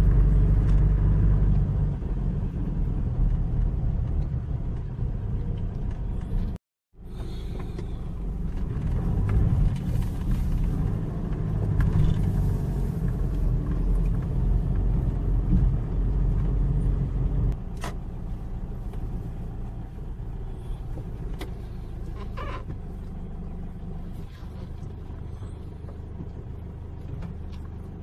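Low rumble of engine and road noise inside a moving car's cabin. The sound cuts out for a moment about seven seconds in, then drops to a quieter level after about eighteen seconds, with a few sharp clicks near the end.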